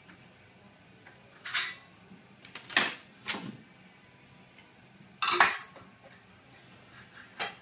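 Steel rules clattering and scraping against galvanised steel trunking as they are picked up, moved and laid across it during marking out: five short metallic knocks, the loudest about three and five seconds in.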